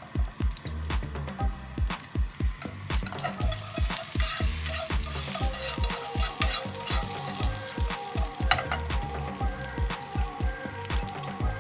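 Cubed guanciale sizzling and spitting in a nonstick frying pan as its fat renders, the sizzle growing louder about three seconds in. Wooden chopsticks click and scrape against the pan as the pieces are stirred. A steady low beat of background music runs underneath, about three beats a second.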